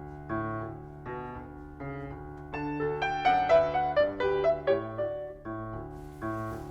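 Gentle piano music: a short melody of single notes over low sustained chords, climbing higher in the middle and settling back down.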